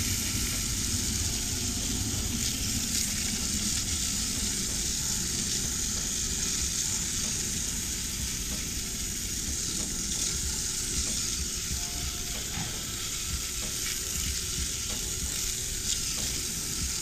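Garden hose spray nozzle jetting water onto a car tyre's rubber sidewall, a steady hiss of spray, rinsing the tyre-letter cleaner off.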